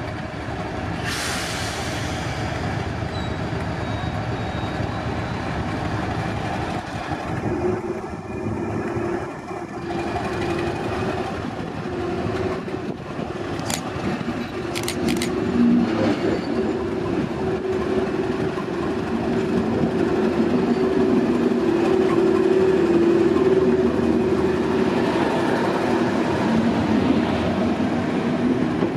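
Diesel locomotive engine running with a steady drone, growing louder over the second half. A short hiss sounds about a second in, and a few sharp clicks come in the middle.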